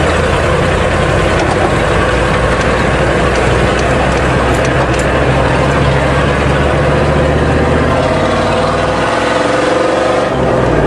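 Ford truck's diesel engine running under load while driving, heard from inside the cab. Near the end the engine note drops, then climbs again.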